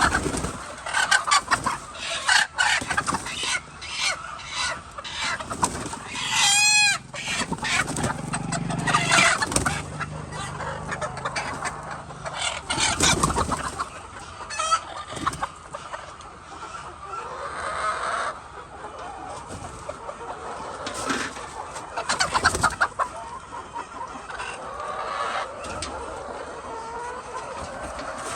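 A flock of hens clucking and squawking, many short sharp calls, with one loud drawn-out squawk about seven seconds in.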